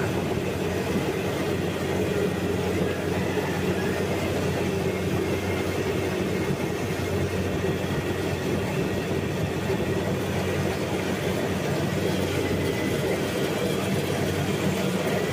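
Combine harvester's engine and threshing machinery running steadily: a continuous even mechanical drone.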